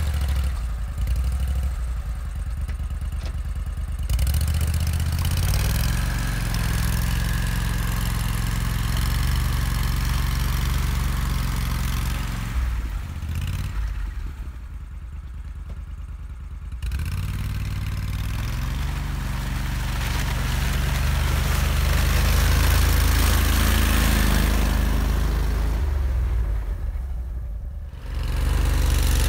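Argo 6x6 amphibious ATV's engine running as it drives through mud, its pitch rising and falling with the throttle. The engine sound drops away for a few seconds about halfway, then comes back louder, and dips briefly again near the end.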